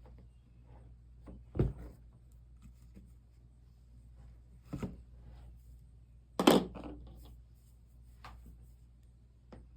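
A few short knocks and clunks, the loudest about six and a half seconds in, as things are handled and set down on a work surface, over a low steady hum.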